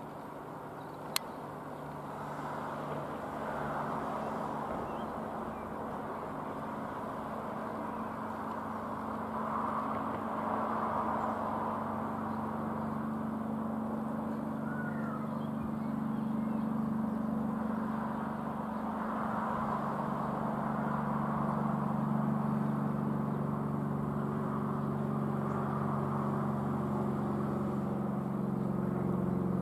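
Rockwell Commander 114's single six-cylinder piston engine and propeller droning overhead, growing steadily louder as the aeroplane approaches. One of its low tones steps slightly lower about two-thirds through. A sharp click about a second in.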